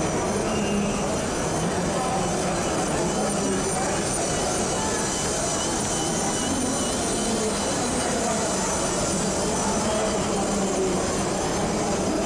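Steady exhibition-hall din of many voices talking, with a LEGO model train running along plastic track.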